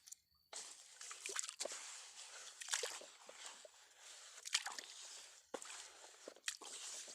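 Faint squishing and scraping of wet sand being stirred and dug through, with scattered small clicks.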